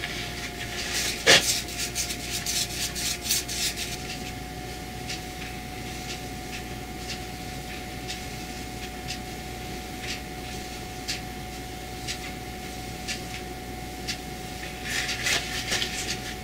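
Paintbrush bristles stroking oil paint onto a painted wooden speaker box, a scratchy rubbing broken by short sharp taps. The taps come thickest near the start and near the end, the strongest about a second and a half in, over a faint steady hum.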